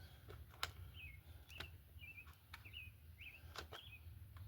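Faint short bird chirps repeating about twice a second, with a few sharp light clicks and taps in between.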